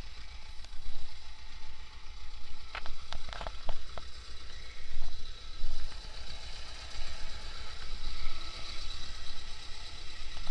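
T-25 tractor's two-cylinder air-cooled diesel engine running steadily while working a rotary tiller, with a short run of sharp clicks and clatter about three seconds in.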